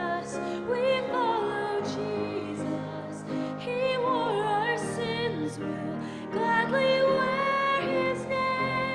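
Worship song: voices singing held, wavering notes over instrumental accompaniment.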